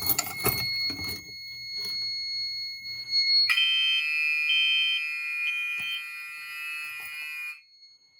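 A key clicking in a fire alarm pull station, then Gentex fire alarm horns sounding together for about four seconds and cutting off suddenly. This is the panel's audible walk test giving a short sounding of the notification appliances for the activated pull station.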